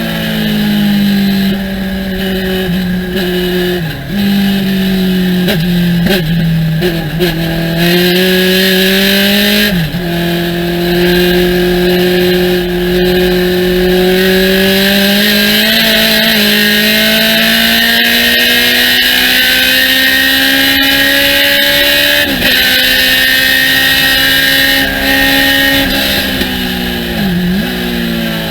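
Thunder Roadster race car engine running hard at speed. Its pitch climbs slowly for long stretches and dips sharply for a moment about four seconds in, around ten seconds, again a little past twenty seconds, and twice near the end, as on gear changes or lifts for corners.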